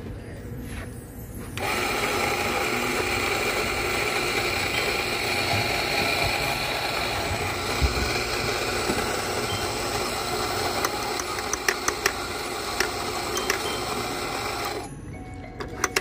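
Electric coffee grinder motor running with a steady whine as it grinds coffee into a portafilter. It starts about two seconds in, runs for about thirteen seconds and cuts off sharply near the end, with a few light clicks in its second half.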